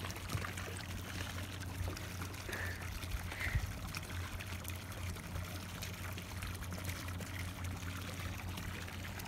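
Shallow lake water lapping and trickling at the shoreline, with a steady low hum underneath.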